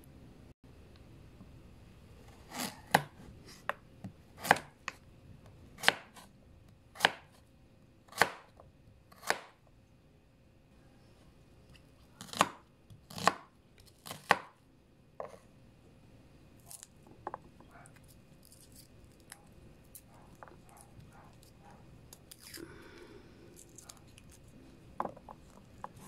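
Kitchen knife cutting through tofu and red onion and knocking on a wooden cutting board. The sharp chops come about once a second in a run of around nine, then three more, then a few lighter cuts.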